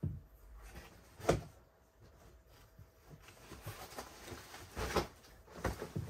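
A few separate knocks and clunks of hard objects being handled and set down, the loudest about a second in, with a short rustle and a couple more knocks near the end.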